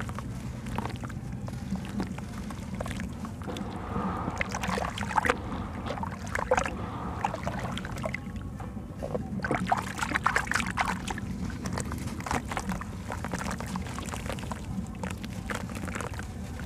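Soft red dirt clumps crumbled by hand into a basin of muddy water: irregular crackles and splashes as pieces break off and drop in, with sloshing as the hands work the wet dirt. The activity comes in bunches, busiest a few seconds in and again past the middle, over a steady low rumble.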